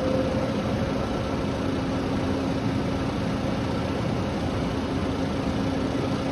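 Morgantown Personal Rapid Transit electric pod running: a steady drone with a faint, even low tone that holds throughout.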